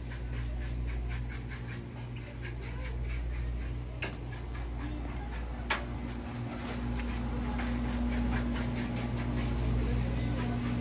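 Steady low mechanical hum with faint rapid ticking, broken by two sharp clicks about four and six seconds in.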